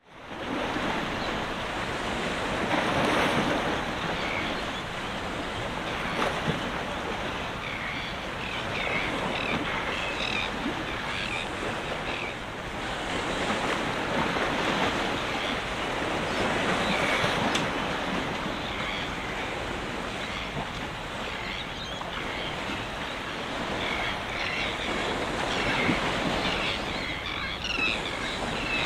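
Small waves washing against a rocky shore, with wind on the microphone; the wash swells and eases every few seconds.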